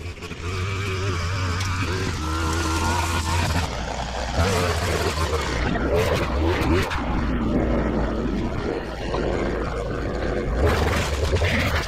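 Ferris ISX800 zero-turn mower's engine running steadily under load, rising to full level in the first half second.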